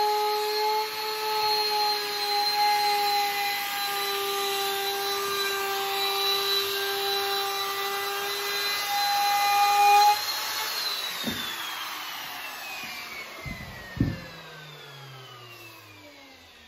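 Handheld trim router with a 6 mm half-round bit running at speed as it rounds over the edge of a wooden snooker cushion rail, a steady high whine. About ten seconds in it is switched off and the whine falls in pitch as the motor spins down, with a couple of light knocks.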